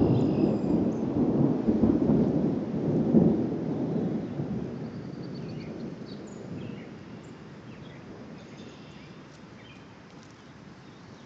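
Distant thunder rumbling, loudest in the first few seconds and dying away over the next several.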